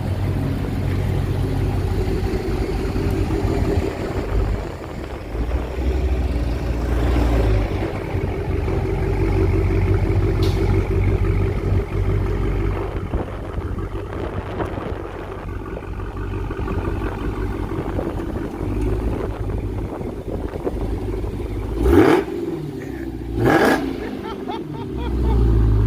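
2021 Dodge Charger Hellcat Widebody's supercharged 6.2-litre V8 running at idle through its 5-inch exhaust tips, a steady deep rumble. Near the end the engine is revved twice in quick succession, each rev rising and falling back to idle.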